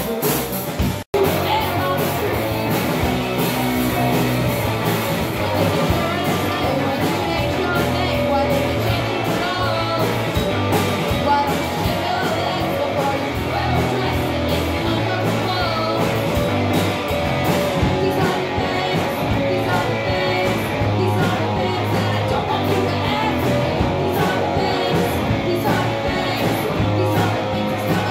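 Live rock band playing: electric bass, electric guitar and drum kit, with a sung vocal. The sound cuts out for an instant about a second in.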